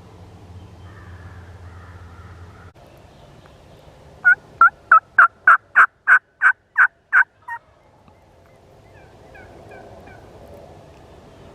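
A run of about eleven loud hen turkey yelps, evenly spaced at about three a second over some three seconds, each note breaking from a low pitch to a higher one. The last yelp is shorter and quieter.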